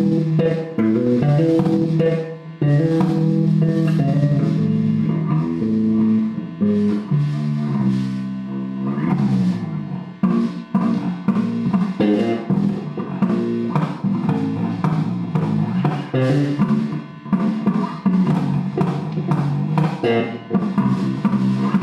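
Guitar music: a plucked, low-pitched line of changing notes with sharp attacks, played without pause.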